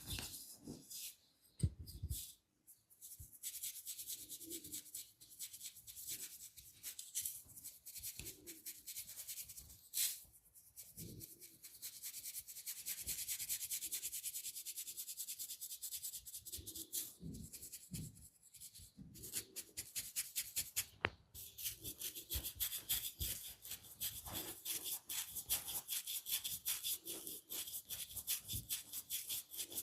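Massage strokes rubbing rapidly over skin, a fast run of rubbing strokes several a second, with a few soft thumps in between.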